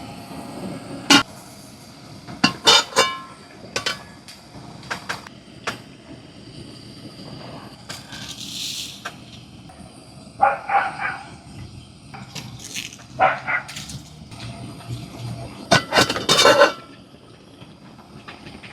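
Cookware and utensils clinking and knocking in scattered bursts, some strikes ringing briefly, with a short hiss partway through.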